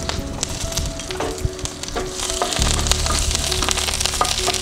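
Mustard seeds, curry leaves, shallots and dried red chillies sizzling and crackling in hot coconut oil for a tempering, with many sharp pops. The sizzle grows louder about two seconds in as the pan is stirred. Soft background music plays underneath.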